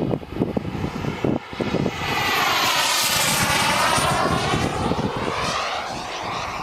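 Turbine-powered RC sport jet (Boomerang Turbinator) passing by: its turbine whine and rush swell to loudest about three seconds in, then fade away.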